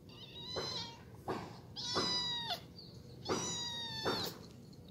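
Orange kitten giving high-pitched, drawn-out cries while a larger grey cat pins it in rough play-fighting: several cries, the two longest nearly a second each.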